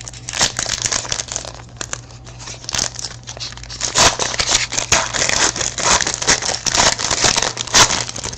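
Trading card pack wrapper being crinkled and torn open, with dense crackling that gets louder about halfway through.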